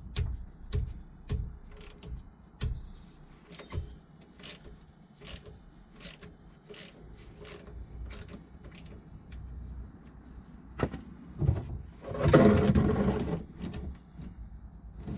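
Hand tools at work on a van's differential plug: a run of sharp metallic clicks and knocks, then a louder rushing noise for about two seconds near the end.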